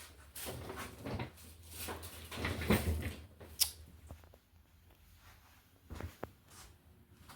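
A suitcase being handled: a few seconds of scraping handling noises, then a sharp click and a couple of short knocks.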